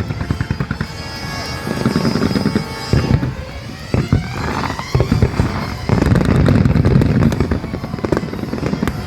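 Fireworks display: aerial shells bursting in quick succession, with dense booms and crackling, and music playing underneath.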